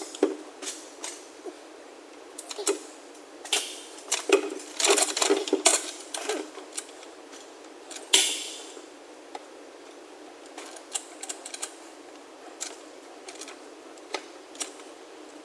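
Irregular metallic clicks and clanks of hand tools and parts being worked under a car, busiest around four to six seconds in. A louder, longer clank with a scrape comes about eight seconds in, followed by a few scattered ticks.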